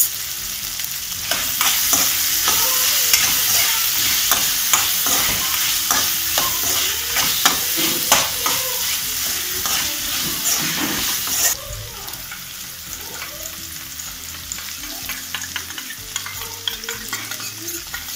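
Onion and capsicum sizzling in a kadai while a metal spoon stirs and scrapes through them, clicking often against the pan. The sizzle drops suddenly to a quieter level about two thirds of the way through.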